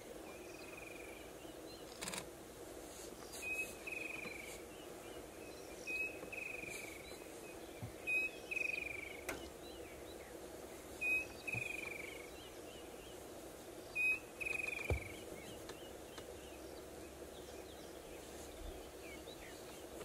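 A bird calling over and over, about every two and a half seconds: each call is a short high note followed by a falling whistle. Under it runs a steady faint background drone.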